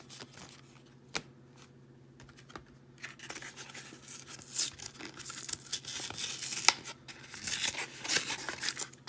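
Yu-Gi-Oh! booster pack wrapper being handled and torn open: a few light clicks at first, then from about three seconds in, irregular tearing and crinkling with several sharp snaps.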